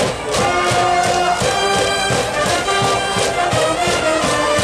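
School cheering band playing a brass cheer song, trumpets and trombones holding notes over a steady drum beat.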